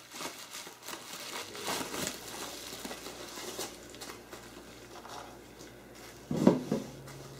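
Plastic bubble wrap rustling and crinkling as it is handled and pulled back from an aluminum extrusion, with a louder bump a little over six seconds in.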